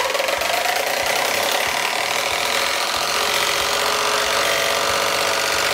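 Small electric fan running close to the microphone, a loud steady motor and blade whir that rises slightly in pitch at first as it comes up to speed, then holds steady.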